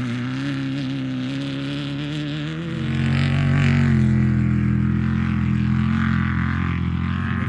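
Off-road race vehicle's engine running at a steady low pitch, growing louder about three seconds in.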